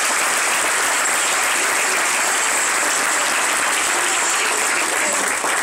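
An audience applauding, a dense, steady clapping that holds at the same level throughout.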